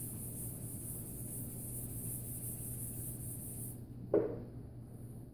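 Chalkboard eraser rubbing across a blackboard as a steady hiss, which stops almost four seconds in. Soon after comes a single sharp knock, over a low steady room hum.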